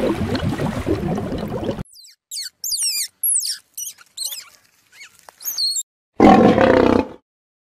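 A lion's short roar about six seconds in, the loudest sound, comes after a string of quick high-pitched chirps and an opening stretch of dense, churning noise.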